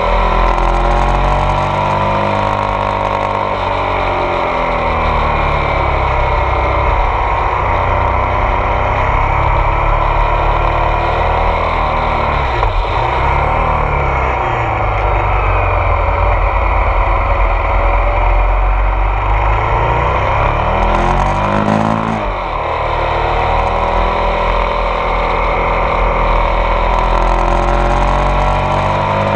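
Ducati Multistrada 1200 S DVT's twin-cylinder engine pulling the bike uphill, with wind noise from riding. The engine note rises and falls with the throttle, dropping and climbing again about twelve seconds in and once more a little past twenty seconds.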